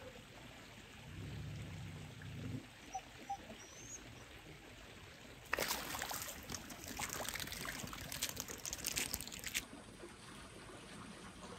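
Water splashing at the surface of a pond in a dense run of splashes and trickles lasting about four seconds, starting suddenly a little before halfway and stopping abruptly.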